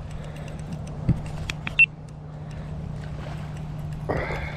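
Spinning-style fishing reel being cranked while a hooked walleye is played in, with scattered clicks and a brief high squeak, and a short splash near the end as the fish reaches the surface.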